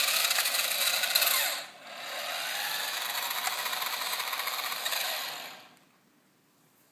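TYCO FX-4 RC car's small electric motor and drivetrain whirring, underpowered on a 9-volt battery. It runs, stops briefly about a second and a half in, then runs again for about three and a half seconds and winds down well before the end.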